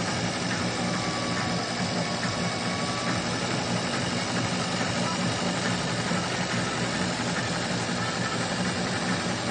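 Industrial sewing machine running steadily as it stitches the lettering of an embroidered name patch, a constant motor and needle hum.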